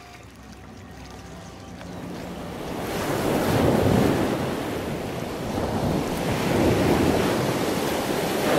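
Wind blowing across the microphone outdoors, a rushing noise that swells about three seconds in.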